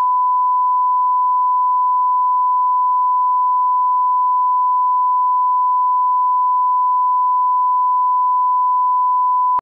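Steady 1 kHz sine-wave line-up test tone, one unchanging pitch that cuts off abruptly near the end.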